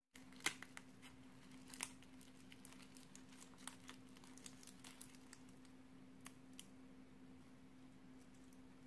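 A roasted sweet potato being torn open by rubber-gloved hands: faint crackling and tearing of the charred skin, with small clicks throughout and two sharper ones in the first two seconds. A faint steady hum sits underneath.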